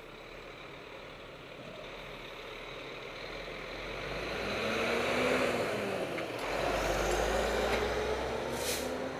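Diesel engine of a tractor-trailer truck pulling past close alongside, growing louder from about three seconds in, its engine note rising and falling as it goes by. A short sharp hiss near the end.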